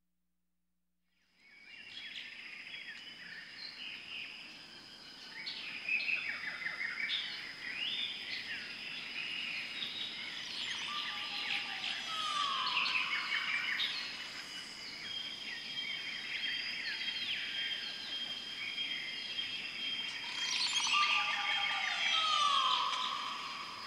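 Forest ambience of many birds chirping and calling over a steady high whine, coming in about a second in, with two longer falling whistled calls partway through and near the end.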